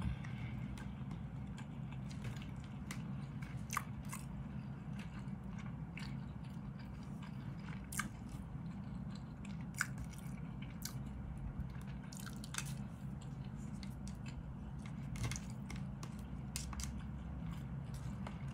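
A person chewing food, with occasional light clicks of a plastic fork and spoon against a plastic food container.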